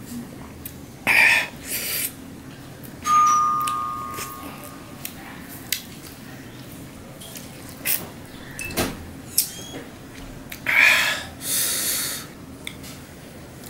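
Eating by hand at a stainless steel plate: two loud, wet mouth noises of about a second each, one near the start and one near the end. About three seconds in the steel plate rings once, a clear tone that fades away over a couple of seconds. A few small clicks come in between.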